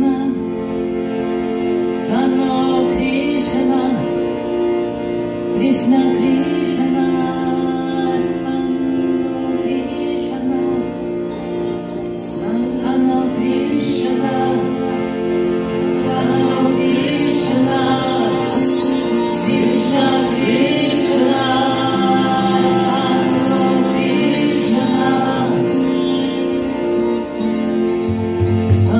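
Live kirtan devotional music: women's voices singing a mantra melody over steady sustained notes, with sitar, cello and hand-drum percussion. A shimmering high rattle, like a shaker or small cymbals, joins for a few seconds past the middle.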